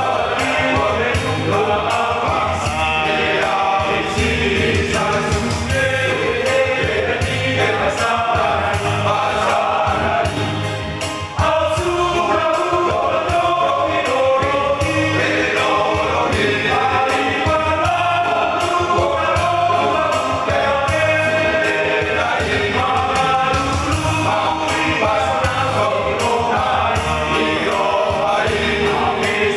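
Choir singing a church cantata (kantate) with musical accompaniment.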